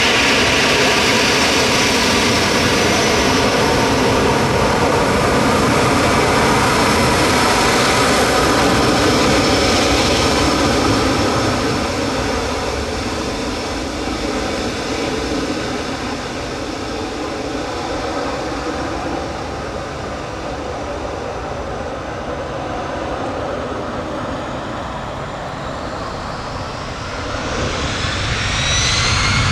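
Airbus A319 jet engines running with a steady whine, easing off for a long stretch midway, then spooling up near the end with a rising whine and growing loudness, as the airliner powers up for takeoff.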